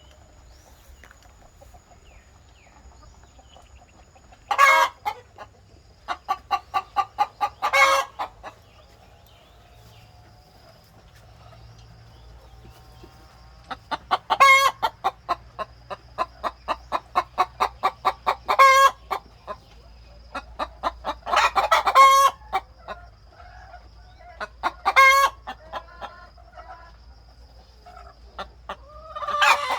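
Chickens clucking and cackling in several bouts: runs of quick clucks that end in a louder, drawn-out call.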